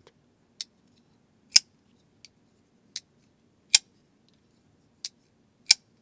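Titanium frame-lock folding knife (Precision Knife Works Wharnetac) having its bearing-pivot blade opened and closed by hand again and again: seven sharp metallic clicks as the blade snaps past the detent and into place. Three of the clicks are much louder, about two seconds apart, with lighter clicks between them.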